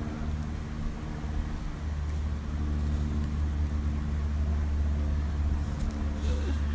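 Steady low drone of a Cessna light plane's piston engine and propeller passing overhead, heard from the ground; it grows a little louder about two seconds in.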